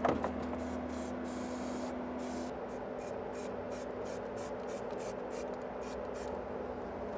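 Aerosol can of zinc-rich primer hissing in short, quick bursts, about three or four a second, as bare metal is primed.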